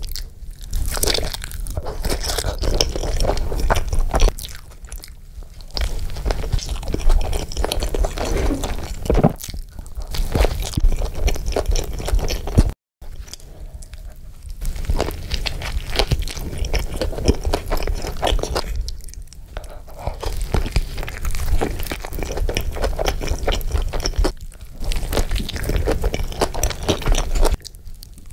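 A person chewing and crunching through a burger close to the microphone, with bites and chewing going on in a dense crackly run. The sound cuts out completely for a moment about halfway through.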